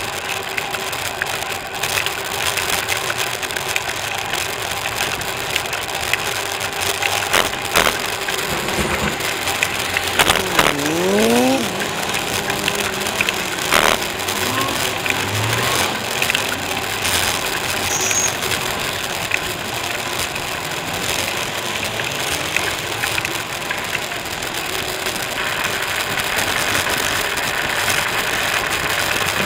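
Steady road and tyre noise from a moving bicycle, with knocks and rattles as it rolls over a paving-block path. Traffic passes on the street alongside. About ten seconds in, a vehicle engine rises in pitch for a second or so.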